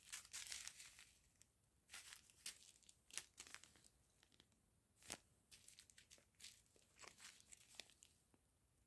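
Faint crinkling of small plastic zip-lock bags full of round diamond-painting drills as they are handled, a string of short scattered rustles and clicks.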